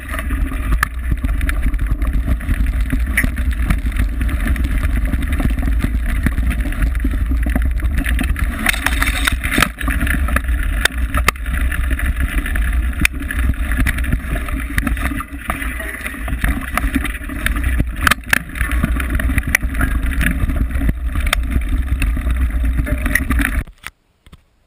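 Wind buffeting a mountain bike's onboard camera microphone on a fast singletrack descent, a steady loud rush with a low rumble and scattered rattles and knocks from the rough trail. It cuts off suddenly near the end.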